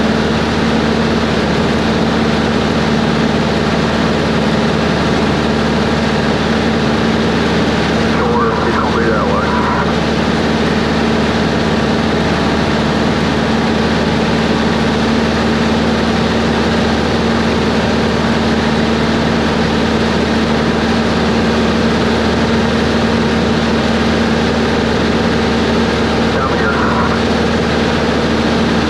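Cessna 140's engine and propeller droning steadily in cruise flight, heard from inside the cockpit.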